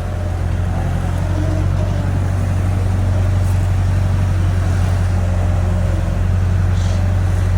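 Excavator's diesel engine running steadily with a low drone.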